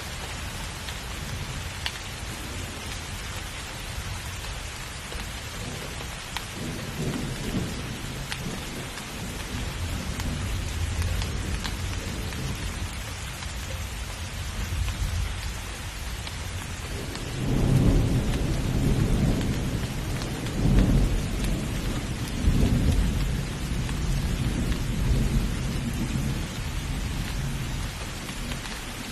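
Steady heavy rain falling, with thunder rolling in: a low rumble builds a few seconds in, and a louder rolling peal comes just past the middle with several swells before it fades back into the rain.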